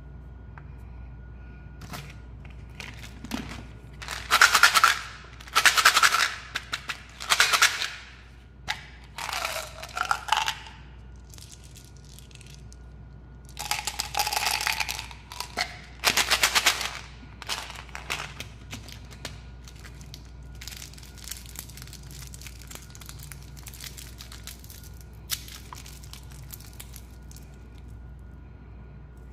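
Small hard white candies rattling in a plastic bottle and pouring out into a hand, in several loud bursts of rapid clicking. These give way to scattered lighter clicks and crinkles as sweets and wrappers are handled.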